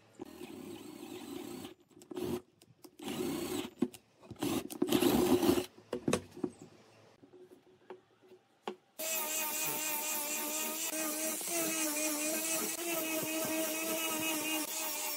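Cordless drill boring into a pine block in several short runs, followed by a few knocks of wood being handled. From about nine seconds in, an angle grinder with a sanding disc runs steadily against a wooden dowel, its whine wavering as it bears on the wood.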